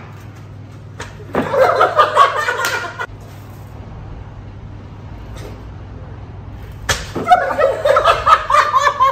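A small group laughing, first about a second in, then again after a single sharp smack near the end as a plastic water bottle comes down on a person's head.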